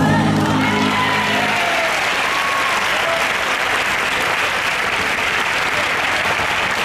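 Crowd applauding steadily as music finishes. The music's last notes fade out in the first second or so, and a few voices call out over the clapping.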